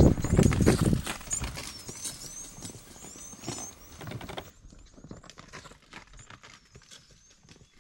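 A clatter of irregular knocks and taps, loudest in the first second and fading after, with small birds chirping high and quick throughout.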